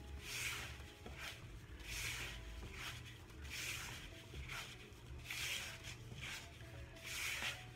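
Dry bath bomb mixture being stirred in a bowl, a soft scraping swish repeating about every one and a half to two seconds.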